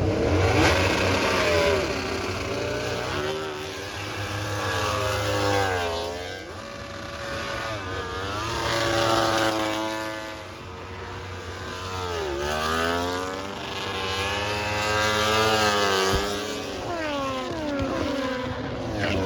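Racing motorcycles passing at speed one after another. Each engine note climbs and then drops sharply as the bike goes by, several times over, above a steady lower drone.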